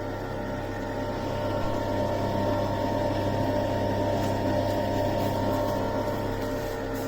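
H.Koenig HF340 compressor ice cream maker running, giving a steady hum of its compressor and churning motor.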